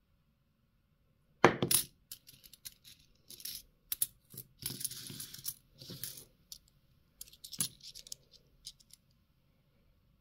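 Bimetallic 2-euro coins clinking as they are handled and dropped among other coins. A loud burst of clinks comes about a second and a half in, then scattered clicks and a brief shuffling rattle of coins for several seconds.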